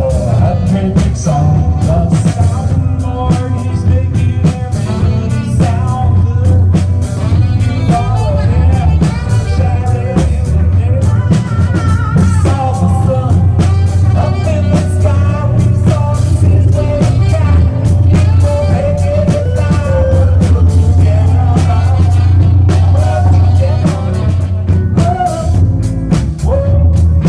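Live band playing: drum kit and electric guitar over a heavy bass line, with singing on top.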